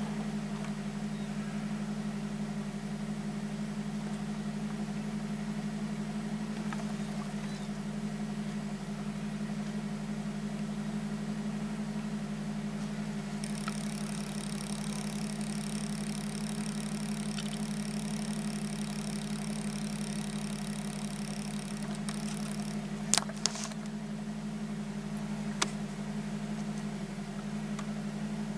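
A car's engine idling steadily, heard from inside the cabin. A faint high-pitched steady tone comes in about halfway and stops about nine seconds later, and a few sharp clicks sound near the end.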